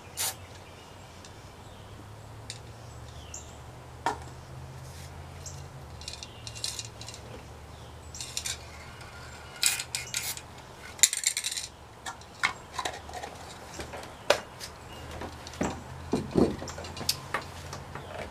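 Hands handling a spray-paint can and a freshly painted plastic radio cabinet: scattered clicks and light knocks, with a few short spray hisses near the middle, over a steady low hum.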